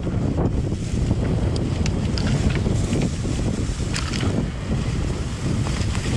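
Heavy wind buffeting the microphone of a camera on a moving enduro motorcycle, with scattered sharp clicks and knocks.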